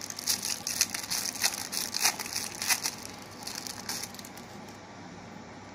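Packaging being crinkled and handled by hand, a quick run of crisp crackles that dies away after about four seconds.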